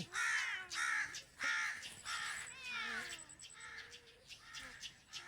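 Crows cawing repeatedly in harsh calls, loudest in the first three seconds and fainter after.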